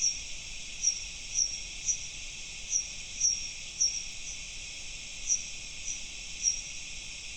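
Bat echolocation calls recorded ultrasonically and pitched down three octaves into the audible range. They come as short high chirps, each dipping slightly in pitch, about one or two a second at uneven spacing, over a steady hiss.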